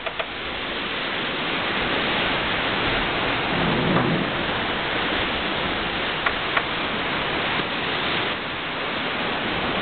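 Steady wind noise rushing over the microphone at the top of a sailboat's mast under sail, an even hiss, with two short ticks about six and a half seconds in.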